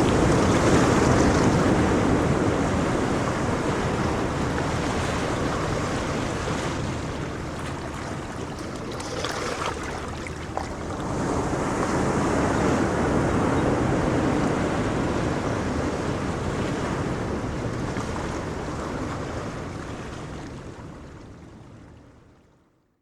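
Ocean waves surging and washing on a shore, a steady rush that swells and eases, fading out near the end.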